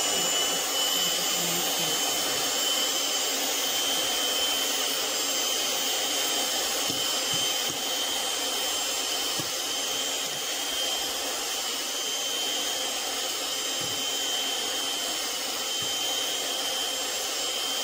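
Electric hand mixer running steadily at speed, its beaters whipping egg whites and brown sugar toward soft peaks: a steady motor hum with a high whine over it. It switches off abruptly at the end.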